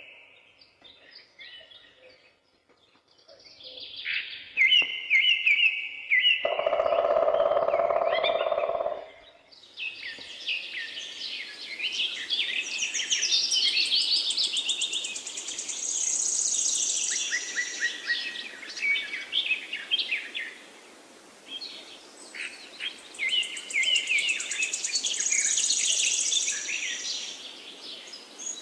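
Wild birds singing and chirping. The calls are sparse at first, with a lower held call about six to nine seconds in. From about ten seconds in, a dense, rapid, high-pitched song sets in over a faint steady hiss.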